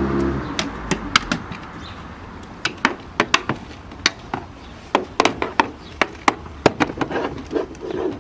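A steady pitched tone cuts off about half a second in. After it comes a long run of sharp, unevenly spaced clicks and knocks.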